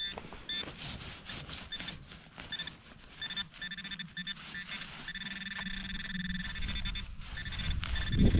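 Metal detector's audio signal over a buried target: a high electronic tone that comes in short chopped pulses at first, then runs together into a near-steady tone from about five seconds in. Scattered short clicks are heard alongside.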